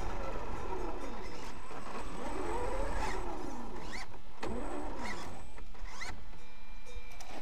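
Traxxas X-Maxx RC monster truck's electric motor whining, its pitch rising and falling several times as the throttle is worked, over a low rumble of the tyres on gravel and grass.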